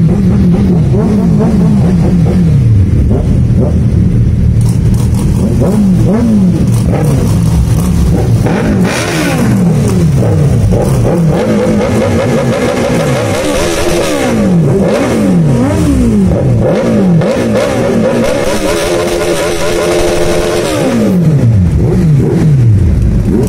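Loud superbike engines revved at a standstill: repeated throttle blips, each rev climbing and dropping quickly, and a longer held rev about three-quarters of the way through.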